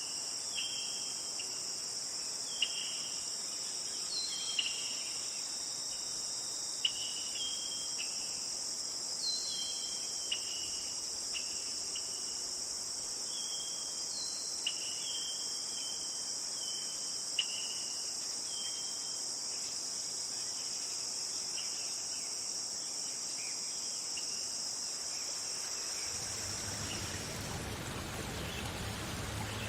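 A steady, high-pitched insect chorus, like crickets, with short falling chirps scattered over it every second or so. Near the end it fades out as an even rushing of water takes over.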